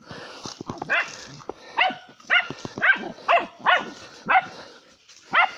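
Dogs barking repeatedly, about eight sharp barks roughly half a second apart, at an armadillo they have cornered.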